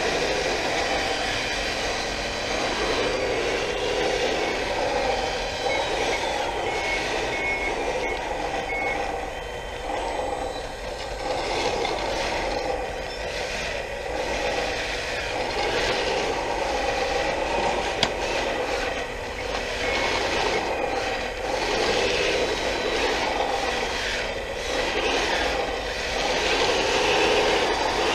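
A 1/14 scale hydraulic RC wheel loader driving and working: the whine of its electric motors and hydraulic pump rises and falls in pitch in waves as it moves and works the bucket.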